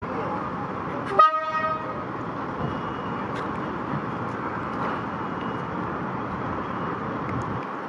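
Derby Lightweight diesel railcar giving one short toot on its horn about a second in, the signal that it is about to depart. Its diesel engine runs steadily underneath.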